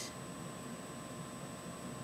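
Steady background hiss of a quiet room, with faint steady high-pitched tones underneath.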